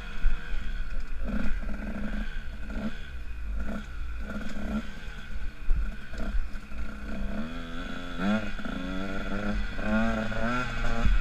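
Motocross dirt bike engine revving as it is ridden round a dirt track, its pitch rising and falling again and again with the throttle, and climbing in longer sweeps near the end. A heavy low rumble of wind on the helmet-mounted microphone runs underneath.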